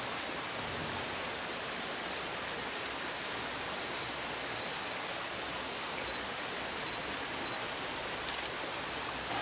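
Steady, even rushing hiss of outdoor forest ambience, with three faint short high bird peeps a little past halfway.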